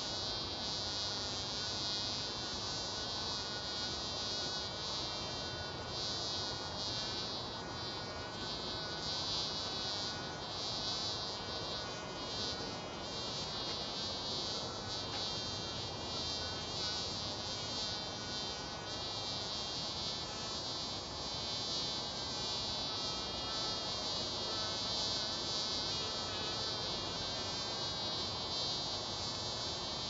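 Mason bees buzzing at each other: a continuous high-pitched insect buzz that holds steady, wavering a little in strength.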